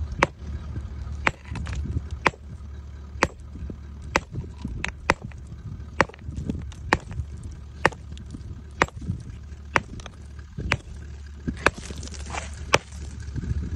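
Hammer blows breaking into a gold-bearing quartz vein in rock: sharp strikes, evenly paced at about one a second, over a low steady hum.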